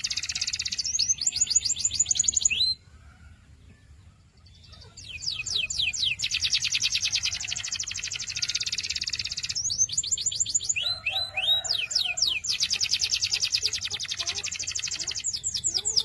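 Canary singing in fast rolling trills of rapidly repeated high notes, with quick sweeping notes between rolls. The song stops for about two seconds early on, then resumes.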